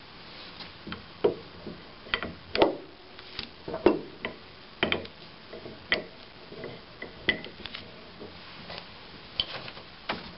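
Adjustable wrench working the large conversion plug out of a hydraulic directional control valve: irregular sharp metallic clicks and knocks as the wrench is set on and turned and the valve is handled.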